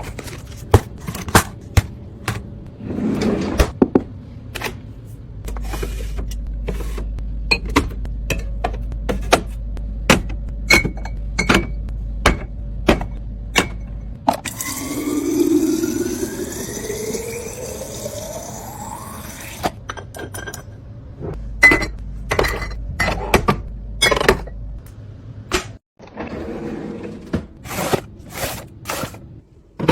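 Fridge restocking: many sharp clicks and knocks of containers, lids and packages being handled and set down. In the middle comes a stretch of several seconds with a steadily rising pitch, like liquid being poured into a container as it fills.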